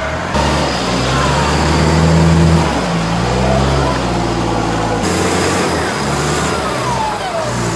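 Off-road 4x4 engine revving under load, its pitch stepping up and down as the throttle is worked.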